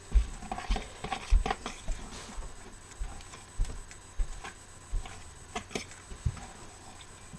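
Hands mixing raw ground turkey meatloaf mixture in a bowl: irregular soft squishes with light knocks against the bowl.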